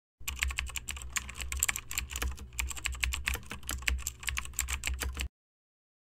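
Computer keyboard typing sound effect: rapid, uneven keystroke clicks that start and stop abruptly, with dead silence either side, marking text being typed onto the screen.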